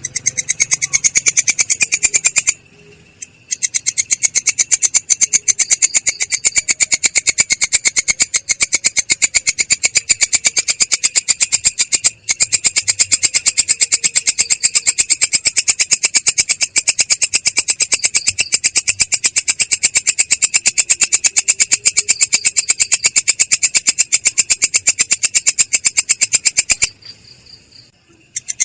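Singing insect stridulating: a rapid, very even train of high-pitched buzzy pulses, with a short break about three seconds in, stopping shortly before the end.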